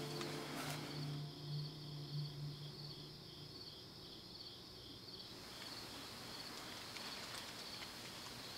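Crickets chirping steadily in an even pulsing rhythm, a few pulses a second. A low steady hum underneath fades out about halfway through.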